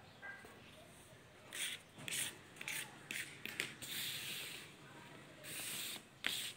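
Fingers crunching and rubbing crushed mothball powder against brown paper: a run of short scratchy crunches, then longer sweeping swishes, with a sharp tick near the end.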